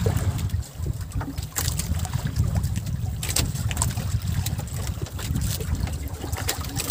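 Wind buffeting the microphone with a low uneven rumble, and water lapping against the hull of a small outrigger boat, with a few short splashes or knocks.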